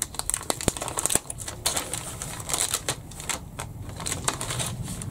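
Clear plastic bag crinkling and rustling as a plastic model-kit sprue is cut free and slid out of it, with scattered light clicks and taps.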